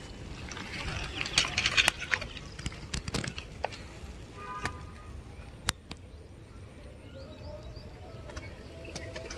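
Rustling and clicking of hands handling a freshly caught tilapia as it is taken off the hook, busiest in the first few seconds, with a short chirp near the middle and a single sharp click a little after.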